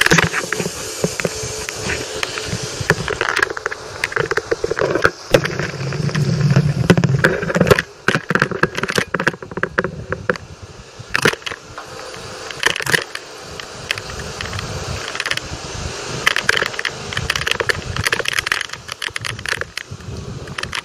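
Irregular rattling and clicking of a bicycle and its mounted camera jolting over a rough street, over a steady rush of movement noise. A low engine hum, from a vehicle going by, rises about six seconds in and fades by eight.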